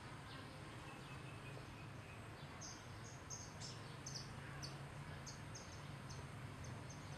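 Faint outdoor ambience: a run of short, high chirps, several a second, begins about two and a half seconds in, over a low steady hum.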